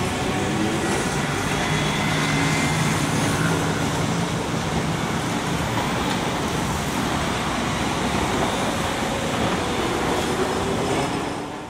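City street traffic noise with streetcars running past on their rails among cars, a steady rushing sound that fades out near the end.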